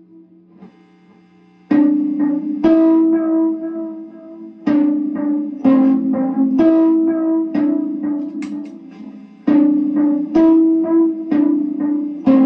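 Amplified kalimba (thumb piano) played through a fuzz, EQ, chorus and delay pedal chain into guitar amps. A note fades out, then after a short pause comes a slow run of about ten plucked notes, each ringing out.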